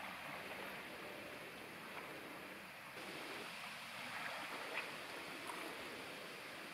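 Small waves washing and lapping, a faint steady rush with a few light ticks.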